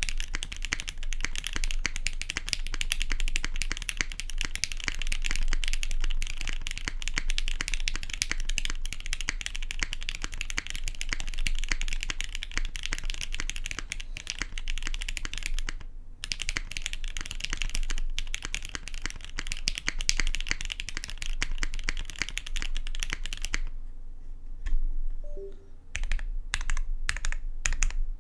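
Custom 60% mechanical keyboard (GS60 case, UHMWPE plate, lubed Gateron Black Ink linear switches, GMK keycaps) being typed on fast and continuously. Near the end the typing stops for about two seconds, then resumes as separate keystrokes. A steady low hum runs underneath.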